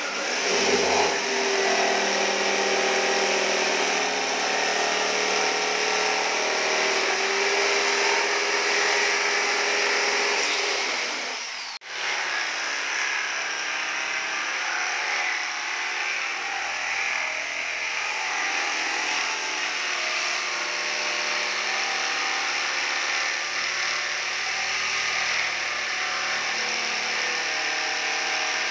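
Corded jigsaw cutting through a plywood panel, its motor whining steadily as the blade saws. There is a momentary break about twelve seconds in.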